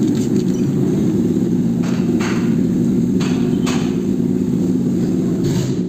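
A steady low motor hum, with several sharp clicks and knocks as the metal and plastic parts of an AMT clutch actuator are handled and fitted together.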